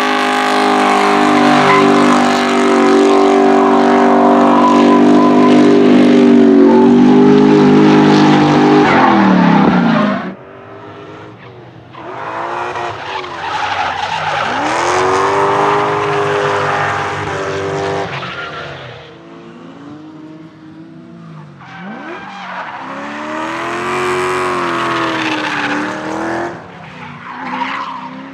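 BMW E30 drift car engines at full throttle with tyre squeal. First one engine is held at steady high revs for about ten seconds while the rear tyres spin. It then drops off sharply with a falling pitch. After that, quieter engines rev up and down again and again as cars slide through the corners.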